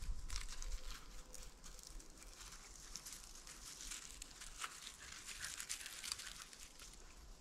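Faint, irregular rustling and crackling of dry leaves and brush as a beagle moves through the leaf litter close by.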